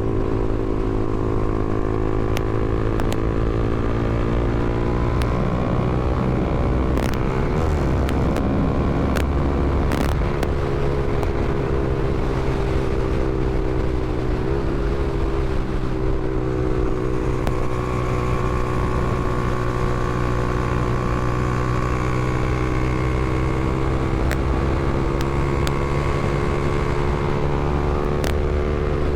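Honda CBR300R's single-cylinder engine running at a fairly steady speed, its note dipping and recovering briefly a few times. A couple of sharp clicks come about seven and ten seconds in.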